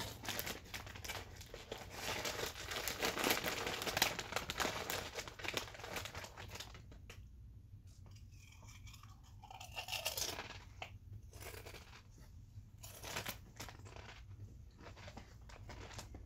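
Potato chip bag crinkling and rustling for several seconds, then scattered crunches of kettle-cooked chips being bitten and chewed.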